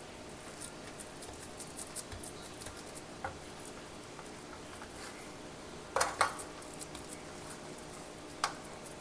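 Silicone spatula spreading and pressing coconut barfi mixture into a metal baking tray: soft scrapes and light clicks, with two louder knocks close together about two-thirds of the way through and another near the end.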